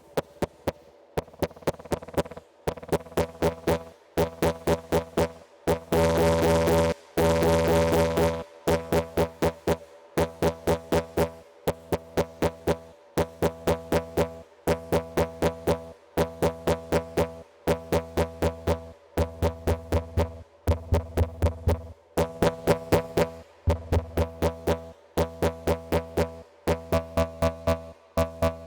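Electronic music from a VCV Rack software modular synthesizer patch: rapid, evenly spaced drum-machine-style hits over a pitched synth line, with brief breaks every second or two. A louder held tone comes in about six seconds in and lasts about two seconds.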